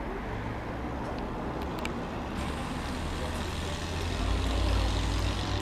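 Street traffic: a motor vehicle passing below, its rumble swelling about four seconds in over steady road noise.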